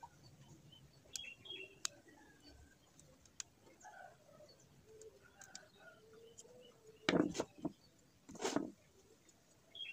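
Small clicks and scrapes of a screwdriver working the screw terminals of a relay module, with two louder rustling handling noises about seven and eight and a half seconds in. A dove coos faintly in the background.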